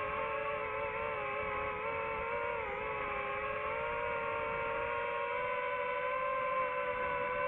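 DJI FPV drone's motors and propellers whining in flight as a steady pitched buzz. The pitch dips briefly about two and a half seconds in, then rises slightly.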